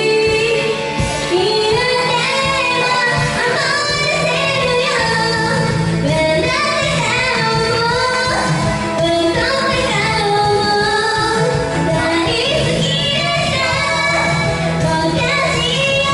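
A female vocalist singing a J-pop song live over loud backing music with a steady beat.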